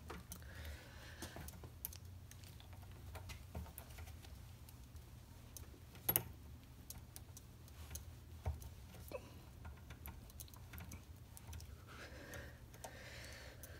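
Faint scattered clicks and rubbing as a rubber push-lock hose is worked down onto a barbed AN fitting clamped in a bench vise, with a sharper click about six seconds in, over a low steady hum.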